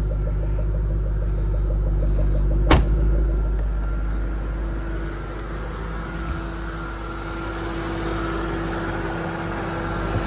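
Ford 4.6-litre DOHC Cobra V8 of a Qvale Mangusta idling steadily, heard from outside the car. About three seconds in, a single sharp thump as the trunk lid is shut.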